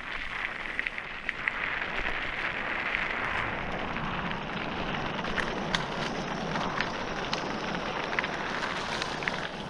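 Mountain bike tyres rolling over a loose gravel fire road: a steady crunching hiss of stones under the wheels, with scattered sharp ticks through it.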